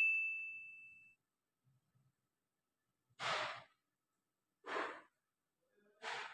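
The ring of a metallic ding fades out in the first second. Then come three short, soft exhaled breaths, about a second and a half apart.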